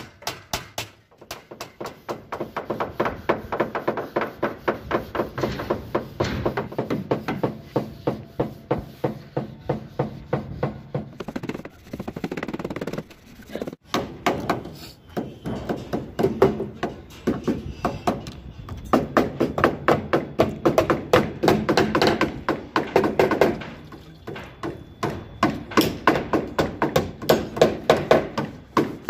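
Rapid, repeated hammer blows on metal, several a second, broken by short pauses about a second in and near the middle.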